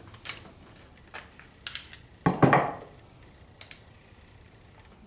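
Metal hand tools clinking: sockets, a ratchet and an extension being handled. Several separate sharp clinks, with one louder clank about two and a half seconds in.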